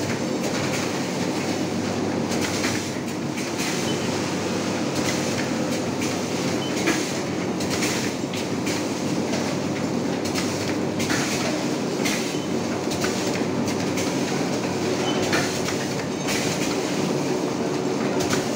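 Fully pneumatic vertical form-fill-seal packing machine running, forming, filling and sealing 500 g detergent pouches: a steady mechanical clatter with repeated short clacks through it.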